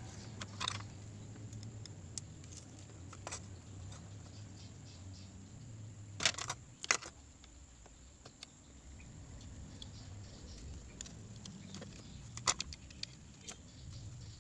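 Scattered small clicks and taps of tools and parts handled on a smartphone being taken apart for a screen replacement, over a low steady hum. The sharpest clicks come as a pair about six to seven seconds in and again near the end.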